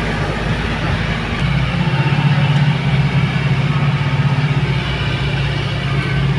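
Truck engine running under way, heard from inside the cab as a steady low hum that grows louder about a second and a half in.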